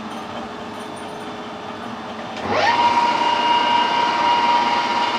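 Over a steady low hum, a metal lathe's spindle starts about two and a half seconds in. A rising whine settles into a steady high-pitched whine as the three-jaw chuck spins, and it drops away right at the end.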